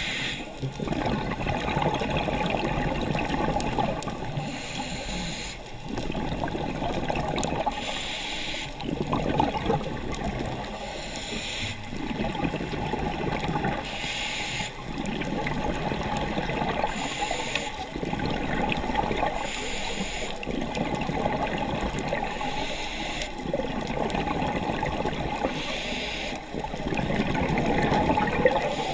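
Scuba diver breathing through a regulator underwater. Each breath is a short hiss on the inhale, then a longer bubbling rush as the exhaled air escapes, about one breath every three seconds.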